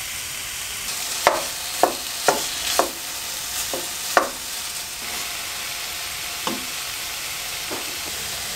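Diced chicken sizzling steadily in a stone-coated nonstick frying pan while a wooden spatula stirs it, knocking against the pan about six times in the first half and twice more later.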